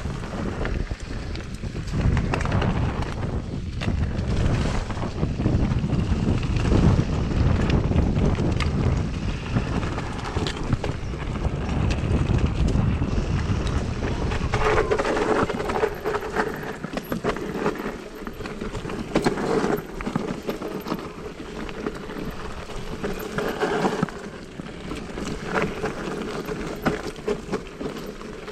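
Mountain bike ridden on a trail: wind buffeting the camera microphone over the rattle and rumble of tyres and bike, heavy for the first half. From about halfway through the rumble drops and a steady whine runs underneath.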